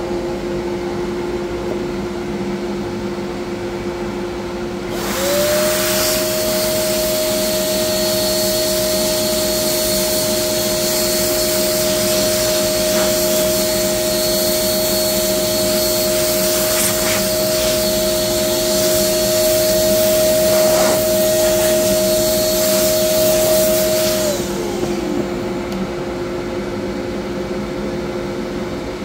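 Shop vacuum switched on about five seconds in, running steadily as its nozzle sucks sanding dust off an MDF carving, then switched off and winding down near the end. A steady machine hum runs underneath throughout.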